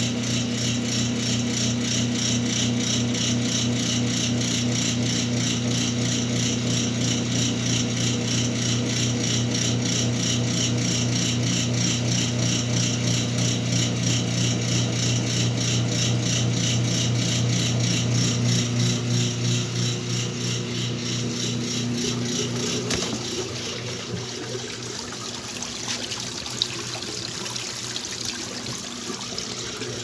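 Whirlpool top-loading washing machine draining its tub: the drain pump runs with a steady hum and a fast rattle. About two-thirds of the way through the hum drops away, leaving a quieter, irregular rattling.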